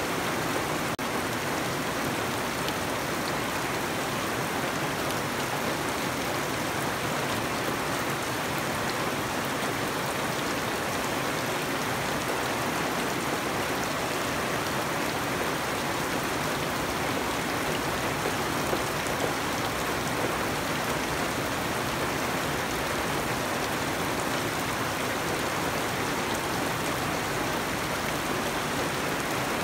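Steady rain falling on leafy garden plants and wet, puddled ground, an even noise that does not change.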